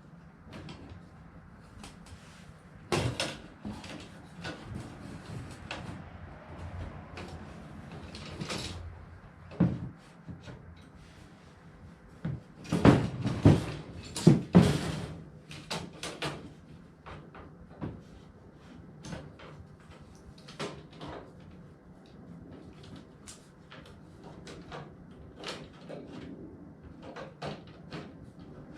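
Parts of a DeWalt storage drawer kit being slid and fitted onto a shelf unit's frame: scattered knocks, rattles and clicks of handling, with a cluster of louder knocks about halfway through.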